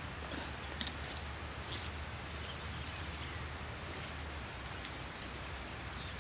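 Footsteps crunching and trekking-pole tips clicking on a gravel trail over a steady outdoor hiss, with a short run of high bird chirps near the end.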